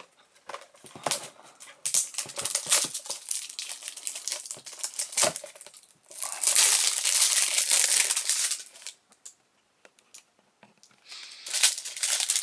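Crinkly packaging of a Funko mystery mini being handled and torn open by hand: scattered crackles at first, a long continuous crinkling from about six to nine seconds in, then another short burst near the end.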